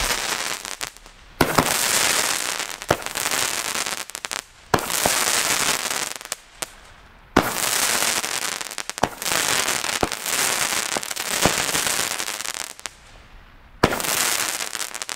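Firework batteries firing gold-tailed comets: each shot is a sharp crack followed by about two seconds of loud hissing, with a new shot every two to three seconds.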